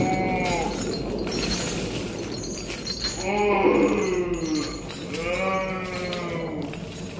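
Long, drawn-out moaning cries that bend and fall in pitch: one trailing off just after the start, then two more about three and five seconds in. Behind them is a steady hissing, clattering noise.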